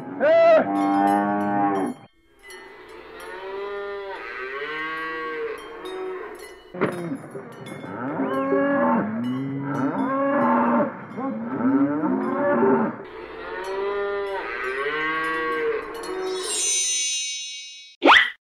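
Cows mooing: a run of long, drawn-out calls, several overlapping, each rising and then falling in pitch.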